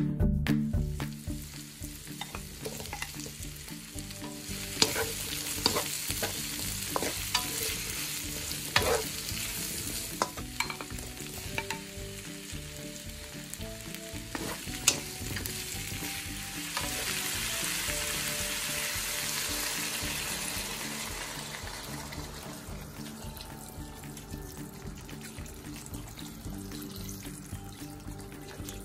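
Diced onions, bell peppers and celery sizzling as they fry in a non-stick pan, stirred with a wooden spatula that clicks and knocks against the pan now and then. The sizzle is a steady hiss that swells for a few seconds past the middle.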